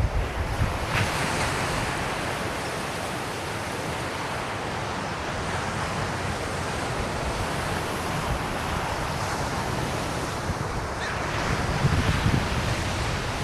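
Ocean surf breaking and washing up the beach, a steady hiss that swells about a second in and again near the end, with wind buffeting the microphone in low rumbles.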